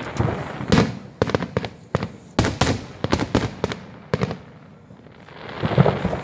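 Fireworks display: a rapid series of sharp bangs from aerial shells bursting, thickest in the middle, with a rushing swell of noise at the start and another near the end.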